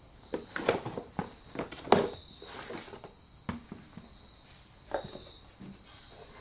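A cardboard box being handled and opened by hand: irregular taps, knocks and rustles, bunched in the first two seconds with the loudest about two seconds in, then a few single knocks.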